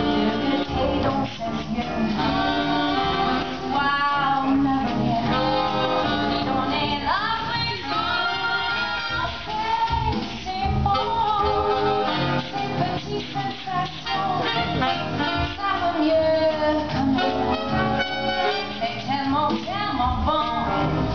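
Live swing band music with saxophones, brass and drums, with a woman singing over it.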